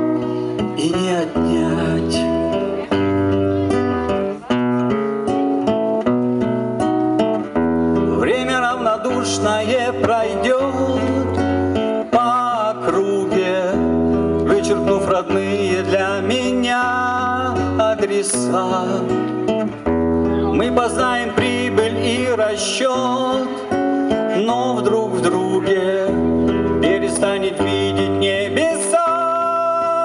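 Acoustic guitar played through a stage sound system, with a man singing along and a regular pattern of deep bass notes underneath.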